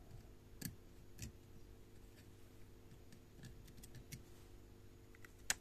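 Faint scattered clicks and taps of tools being handled at a soldering bench as a soldering iron is put to a chip's pins, with one sharper click near the end, over a low steady hum.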